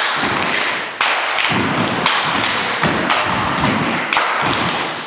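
A group of people clapping and stomping and jumping on a wooden dance-studio floor: a dense clatter of claps and thuds, with a harder hit about once a second.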